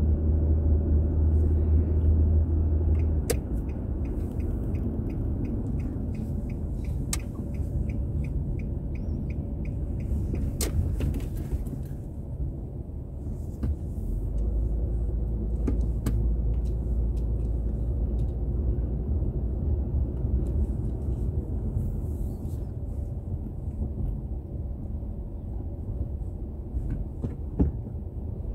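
Car driving in traffic, heard from inside the cabin through a dash recorder: a steady low rumble of engine and tyres whose pitch shifts as the car slows and moves off. About three seconds in, a run of quick, even ticks starts and lasts some eight seconds.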